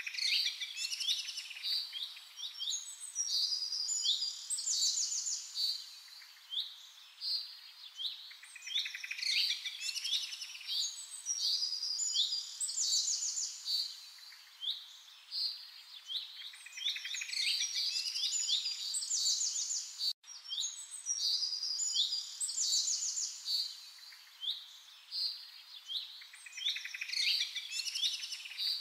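Songbirds chirping and singing in a dense, overlapping chorus of short high calls and trills that swells and eases every few seconds, over a faint hiss. The sound cuts out for an instant about twenty seconds in.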